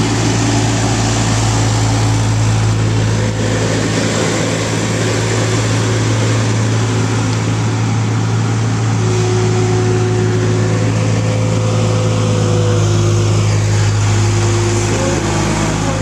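New Holland skid-steer loader's diesel engine running steadily with a deep hum while it drives a loaded bucket to the feed mixer and raises it.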